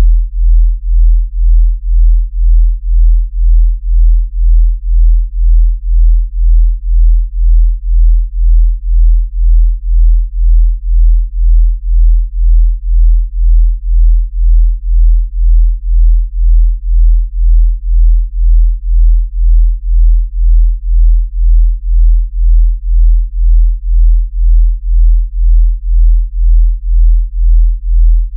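Two low sine tones of about 40 and 42 Hz beating together, a deep hum that swells and fades evenly about twice a second: a delta-range beat tone.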